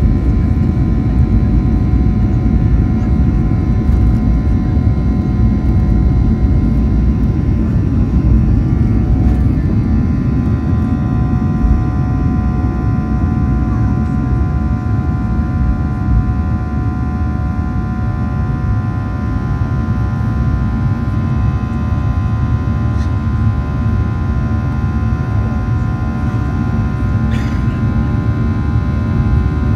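Boeing 737-800's CFM56-7B turbofan engines at takeoff thrust, heard from inside the cabin beside the wing: a loud, steady low rumble with several high steady whining tones over it, through the takeoff roll and on into the climb after liftoff.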